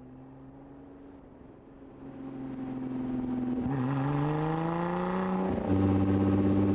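Lotus Evora 400 sports car's supercharged V6 accelerating, coming up from faint to loud with its pitch climbing. The pitch dips briefly partway through. Shortly before the end it drops suddenly, as at an upshift, and the engine runs on louder and steady.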